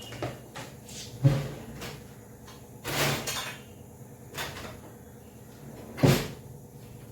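Kitchen knocks and clatter, a few sharp knocks with the two loudest about a second in and about six seconds in, and a short rattle around three seconds in.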